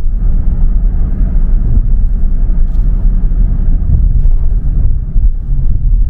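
Steady low rumble of a car driving along: road and engine noise.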